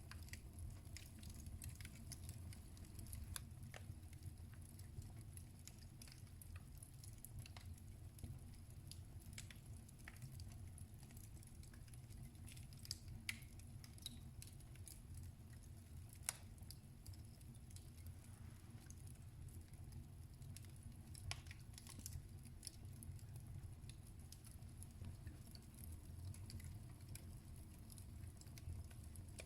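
Wood fire crackling in a fireplace: scattered faint pops and snaps over a low steady rumble.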